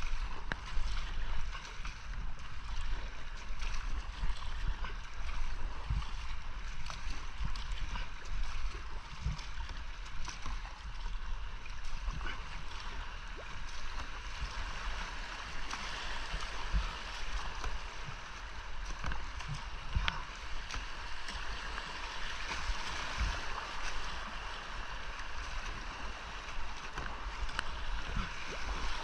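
Whitewater rushing and gurgling around a kayak running a creek's rapids, with frequent short low thumps.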